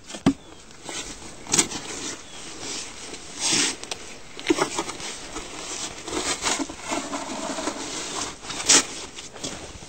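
Snow shovel digging and scraping through deep snow: several short scrapes and crunches at irregular intervals, the sharpest near the end.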